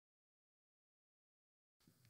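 Near silence: the sound track is dead silent, with faint room noise coming in near the end.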